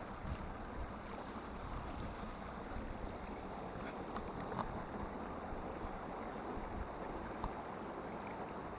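Shallow stream running over rocks and gravel close to the microphone, a steady rush of water.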